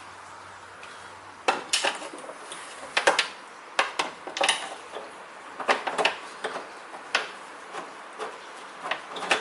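Irregular metallic clicks and clinks of a hand tool and loose metal parts being worked inside a car door, freeing a bolt from the door handle and lock assembly. The clicks start about a second and a half in and come every half second or so, some sharper than others.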